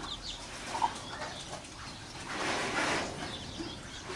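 Five-day-old chicks peeping in short high chirps, with a brief scratchy rustle about halfway through.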